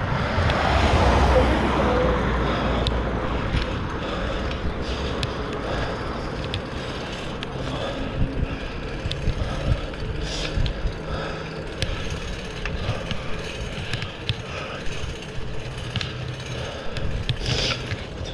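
BMX-style fixed-gear bike being ridden on asphalt: steady tyre and road noise with scattered light clicks and rattles, and a louder rush of noise in the first two seconds.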